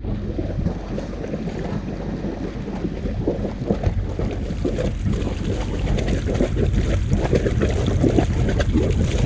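Wet exhaust of a 6 kW Northern Lights marine diesel generator discharging at the hull outlet: an irregular splashing and sputtering of cooling water and exhaust gas, with wind on the microphone.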